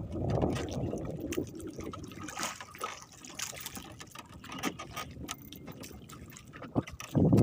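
Sea water sloshing and trickling against a small boat's hull, with scattered light clicks. It is loudest at first and fades.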